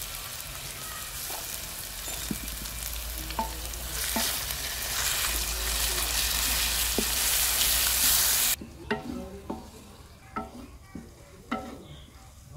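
Fried onions with ginger and garlic paste sizzling in hot mustard oil in a metal karahi as they are stirred with a wooden spatula. The sizzle grows louder, cuts off suddenly about two-thirds of the way through, and quieter scrapes and knocks of the spatula against the pan follow.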